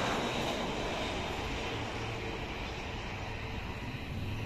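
Airbus A320-family twin-jet airliner passing low on final approach, its jet engine noise a steady hum and hiss that slowly fades as it moves away toward touchdown.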